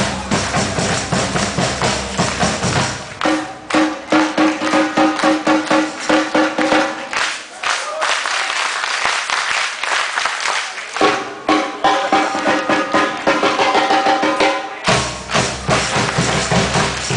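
Batucada samba percussion band playing live: a dense, fast rhythm of drums with higher clicking percussion. The deep bass drums drop out through the middle and come back in about three seconds before the end.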